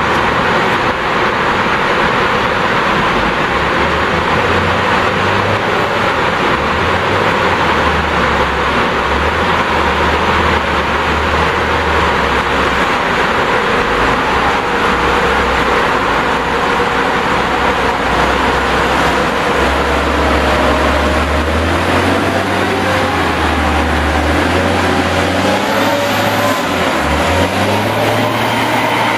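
Diesel engine of an underground mine loader running. Its low engine note steps up and down as it drives, over a steady, loud mechanical rush.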